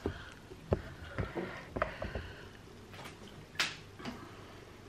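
A handful of light, irregular knocks and clinks of ceramic Easter ornaments being set down on a wooden table, with a brief rustle about three and a half seconds in.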